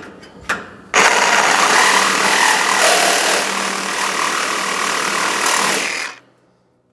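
Reciprocating saw with a metal-cutting blade cutting through metal, running hard for about five seconds and then stopping abruptly.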